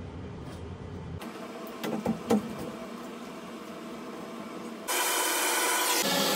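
A few sharp knocks from copper pipe and fittings being handled overhead. Then, about five seconds in, a handheld gas torch comes on with a loud, steady hiss as its flame heats a copper joint for sweating with solder.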